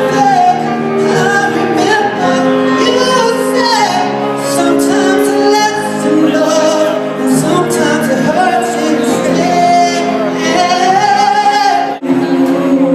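Pop music: a singer holding long, gliding notes over a steady accompaniment. About twelve seconds in it breaks off suddenly and different music starts.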